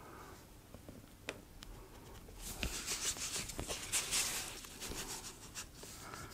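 Pencil marking out lines on an EVA foam sheet: light scratching strokes with a few small clicks, busiest in the middle.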